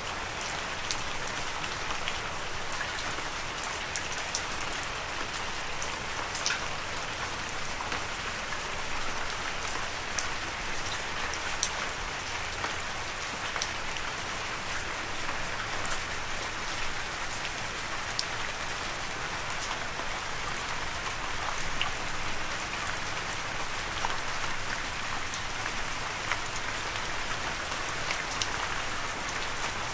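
Steady rain: an even hiss of rainfall with scattered single drops ticking through it.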